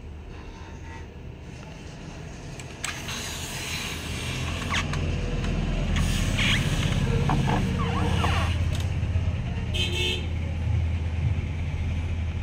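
Low rumble of passing road traffic that builds a few seconds in and then holds steady, with scattered clicks and rattles.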